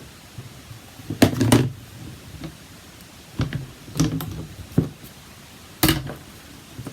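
Knocks and taps of rubber stamping with a hinged Stamparatus positioning tool: the stamp is inked and its plate pressed down on the card. There are about five irregular knocks; the loudest is near the end.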